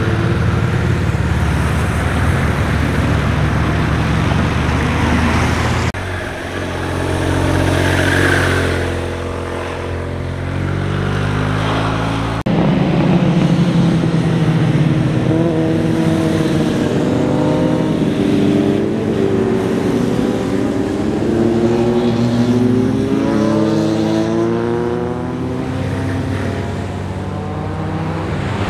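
Motorcycles riding past one after another through a bend, each engine's pitch rising and falling as it accelerates and passes, with abrupt changes between bikes about 6 and 12 seconds in.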